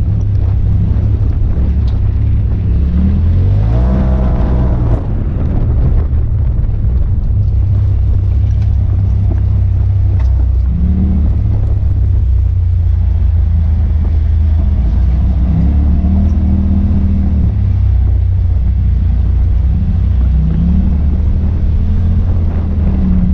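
Side-by-side UTV engine running under way, heard from inside the cab: a steady low drone, with revs climbing steeply about four seconds in and shorter surges of throttle later on.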